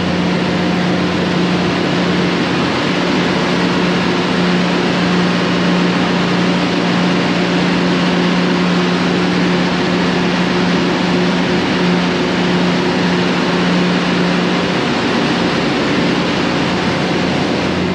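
Loud, steady ship's engine-room noise from the running auxiliary diesel engines: a constant din with a steady low hum underneath.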